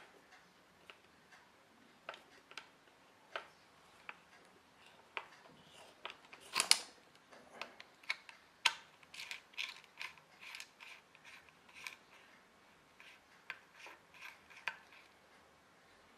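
Small metallic clicks, taps and scrapes from a hard drive's metal parts and a small hand tool being handled as the drive is taken apart. The clicks are scattered and irregular, with a louder clatter about six and a half seconds in and quicker clicking through the second half.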